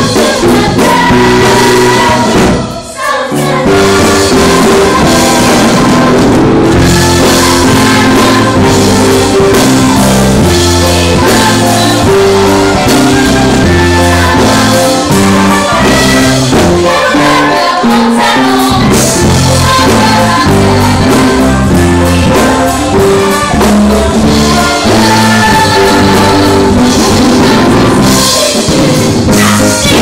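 A large ensemble cast singing an upbeat stage-musical number over musical accompaniment with a steady beat. The music breaks briefly about three seconds in, then carries on.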